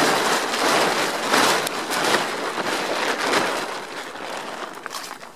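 Plastic tarp crinkling and rustling right against the microphone: a dense, crackly rustle that fades toward the end.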